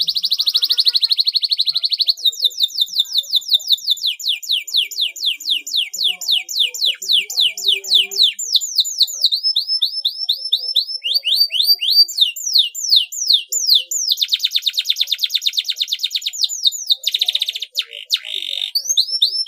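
Domestic canary singing without a break, in full song: a fast buzzing rattle at first, then long runs of high downward-sweeping notes repeated several times a second, the pattern changing every few seconds, with a buzzy rattle again near the end.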